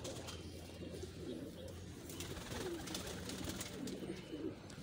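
Domestic pigeons cooing in a loft: several low coos, about a second apart.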